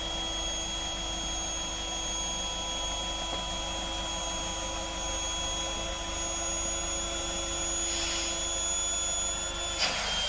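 Cheap electric airbed pump running steadily on the valve of an inflatable boat's tube, a constant whine with several steady tones and a rush of air. Near the end there is a click and the lowest tone stops.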